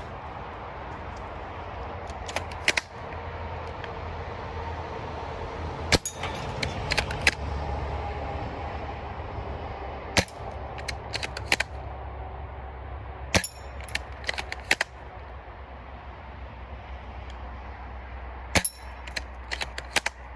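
Cyma VSR-10 spring-powered bolt-action airsoft rifle firing, a sharp crack every few seconds (about four), each followed by a quick cluster of smaller clicks and clacks from the bolt being cycled and the BBs striking targets, over a steady low background rumble.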